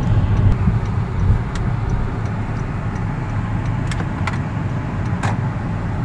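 Steady low rumble of a car's engine and tyres, heard from inside the cabin while driving, with a few light clicks between about four and five seconds in.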